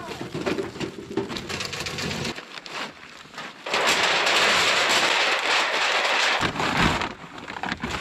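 Camp gear being handled and packed: scraping and clattering for the first couple of seconds, then a loud, even hiss lasting about three seconds, then rustling near the end.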